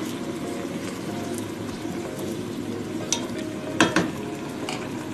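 Chicken and baby carrots sizzling in adobo sauce in a pot as they are stirred, a steady hiss of cooking. A utensil clatters against the pot a few times, the loudest about four seconds in.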